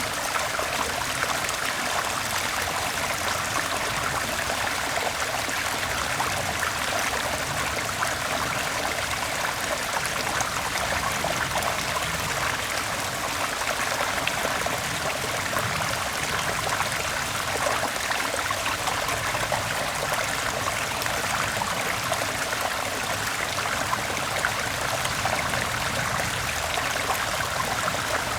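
Mountain stream flowing over rocks: a steady, even rush of water with trickling.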